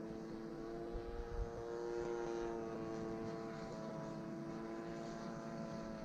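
Radio-controlled model airplane's engine running steadily in flight, stuck at a fixed throttle after loss of throttle control and left to run until the fuel is gone. Its pitch rises and falls slightly as the plane passes.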